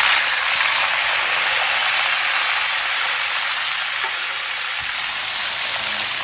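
Fish pieces deep-frying in a pan of hot oil, sizzling steadily, loudest at the start as another piece goes in and easing off a little after.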